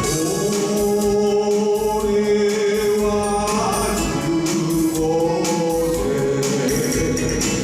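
Background music with sustained singing, several voices holding long notes together.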